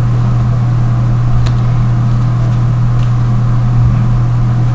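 A loud, steady low hum with a faint hiss over it, and a couple of faint ticks.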